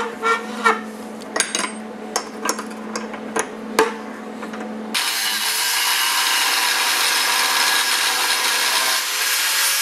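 Metal clinks and knocks of a ring spanner working a bolt held in a steel bench vise, over a low steady hum. About five seconds in, an angle grinder cuts in, grinding metal with a loud, steady hiss.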